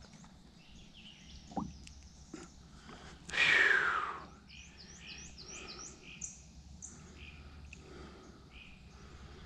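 Small birds calling, a series of short, high chirping notes repeated again and again. About three seconds in, one loud, noisy sound lasting about a second falls in pitch; it is the loudest thing here.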